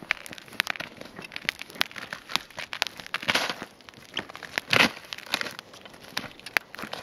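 Boots and trekking-pole tips crunching, scuffing and clicking on snow-dusted frozen river ice as people walk: a run of sharp clicks with a louder crunch about two-thirds of the way through.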